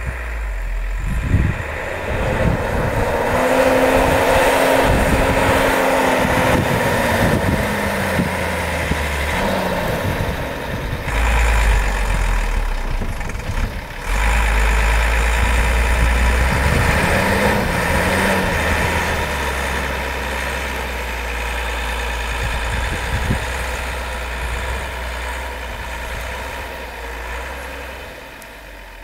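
Mercedes-Benz Unimog's diesel engine working hard as the truck ploughs through deep snow, its revs rising and falling, easing off near the end.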